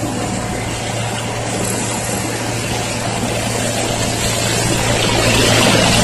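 Single-drum road roller's diesel engine running steadily with a constant low hum, growing louder near the end as the machine comes closer.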